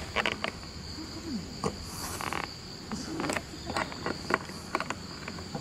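Steady high-pitched insect chirring, with scattered clicks and knocks and brief snatches of faint voices.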